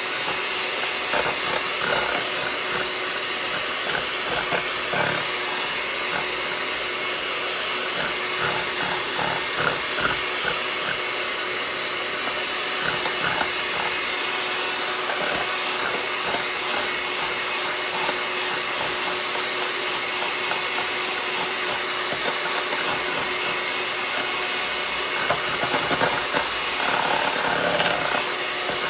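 Electric hand mixer running steadily, its beaters whipping instant coffee, sugar and hot water in a ceramic bowl into whipped coffee; it gets a little louder near the end.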